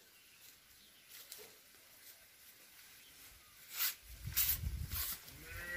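A blade cutting into banana plant stalks: a few sharp strikes from about four seconds in, over a low rumble of wind on the microphone.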